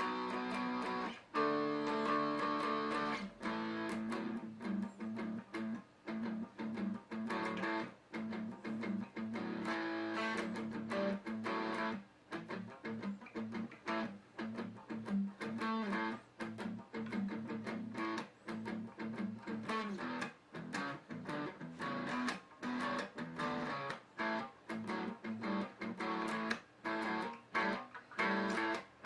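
Guitar being played: a continuous run of picked notes and chords.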